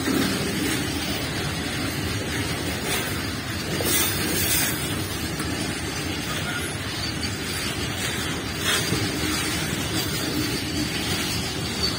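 Empty BCNAM covered goods wagons of a freight train rolling past close by: a steady rumble and rattle of steel wheels on the rails. A few louder clatters break through, about three, four and nine seconds in.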